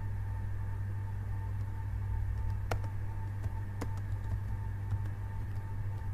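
Computer keyboard keystrokes, a few separate clicks spread out, over a steady low hum with a faint steady high tone.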